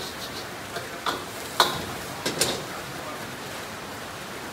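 Metal ladle clanking and scraping against a wok during stir-frying, with three or four sharp knocks in the first half, over a steady hiss from the gas wok burner.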